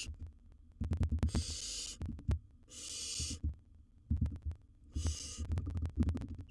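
Barn owl nestlings hissing, three hisses of under a second each, the food-begging call of the chicks, with knocks and scuffles of the chicks moving in the nest box.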